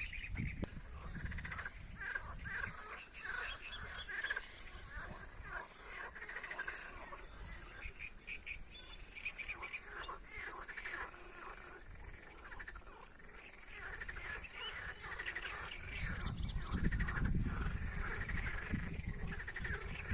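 Frogs croaking in the reeds, a chorus of short repeated calls throughout. A low rumble comes in over the last few seconds.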